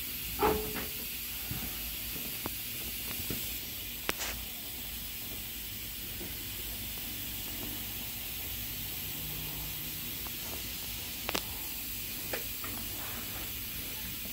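A few scattered light clicks and taps of hand tools working on a mower deck, over a steady hiss.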